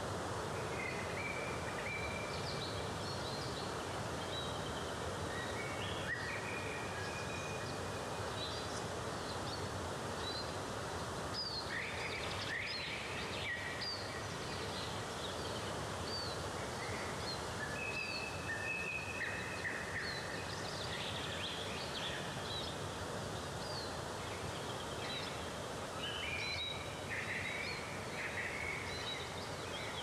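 Steady rush of a waterfall with birds singing over it, a mix of short high chirps and a few held whistles.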